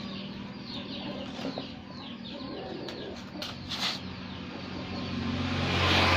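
Chickens clucking in the background. Near the end a low steady hum and a hiss swell up, and these are the loudest sound.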